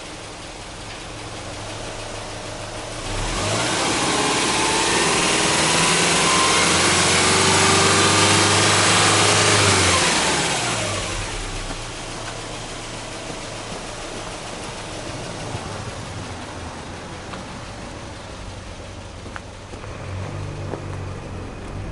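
Subaru 2.5GT tS's turbocharged 2.5-litre flat-four (boxer) engine, revved in neutral: it idles, is run up about three seconds in and held high for several seconds with the revs still climbing, then falls back to a steady idle.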